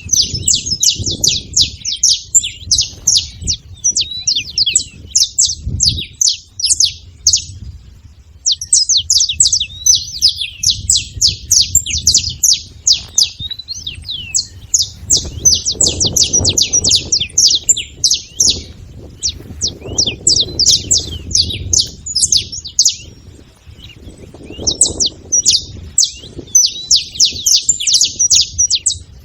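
Saffron finch singing: long runs of rapid, high chirps, broken by a few short pauses between phrases.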